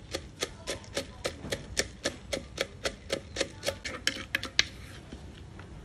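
Wooden pestle pounding roasted peanuts in a mortar: quick, even knocks about four a second, crushing the nuts. The strokes stop a little over four and a half seconds in, the last one the loudest.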